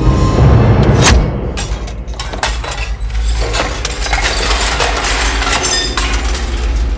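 Glasses and bottles clinking and breaking: a sharp crash about a second in, then many rapid clinks and rattles of glass, over a steady low rumble.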